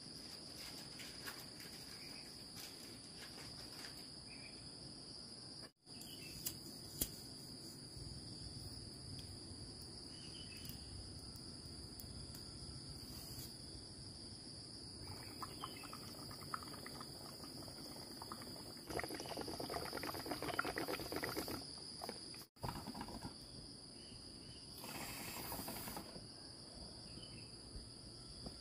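A chorus of insects, giving a steady high-pitched tone throughout. Two stretches of louder, rustling-type noise sit over it in the second half, and the sound cuts out briefly twice.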